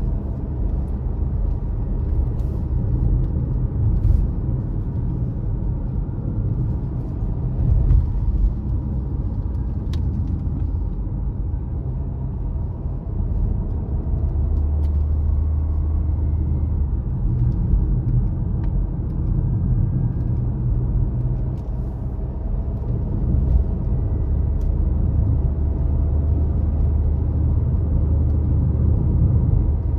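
Steady low rumble of a car being driven on the road: engine and tyre noise, with a few faint brief clicks.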